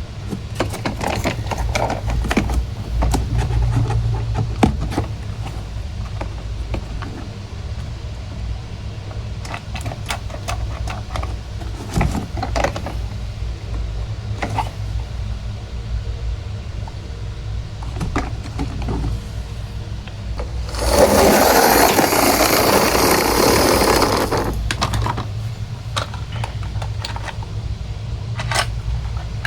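Small plastic toy vehicles being handled: scattered clicks and knocks over a steady low hum, then a burst of rustling lasting about three seconds about two-thirds of the way in.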